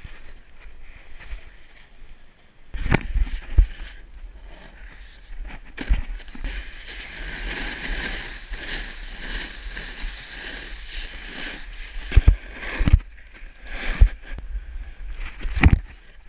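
Snowboard sliding and scraping over packed snow, a rough hiss that thickens through the middle of the run, over a steady low wind rumble on the microphone. Several sharp thumps and knocks break in, with the heaviest clustered in the last few seconds.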